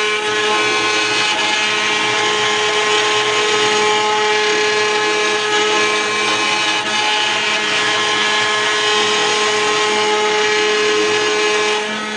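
CNC router spindle running at high speed while a small cutter mills aluminium: a steady whine with several constant tones over cutting noise. It cuts off suddenly near the end.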